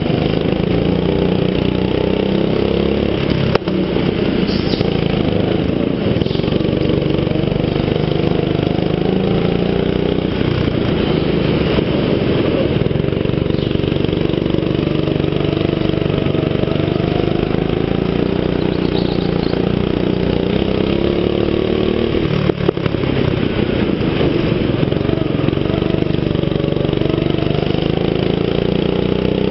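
Go-kart engine running continuously, its pitch rising and falling as the kart accelerates and slows through the corners. Two brief knocks, one a few seconds in and one past the twenty-second mark.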